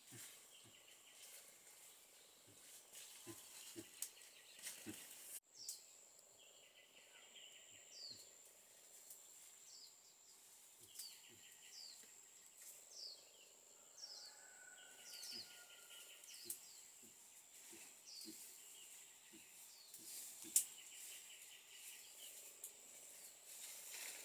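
Faint forest ambience: a steady high-pitched buzz, birds calling in short falling notes about twice a second, and scattered light rustles and snaps in the undergrowth.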